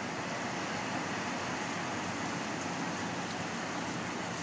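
Steady, even hiss of background room noise, with no distinct handling sounds.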